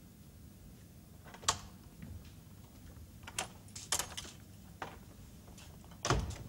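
Scattered clicks and knocks over a faint background, several sharp taps a second or so apart, with the loudest a heavier thump near the end.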